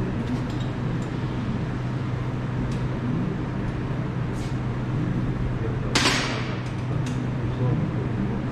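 Steady low workshop hum under a lifted car, with faint metal clinks of hand tools on the underbody bolts and one sharp metallic clack about six seconds in.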